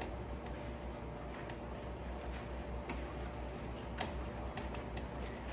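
Light, irregular clicks of small metal model-engine parts being handled and worked by hand, about six in all, the sharpest about three and four seconds in, over a steady background hiss and low hum.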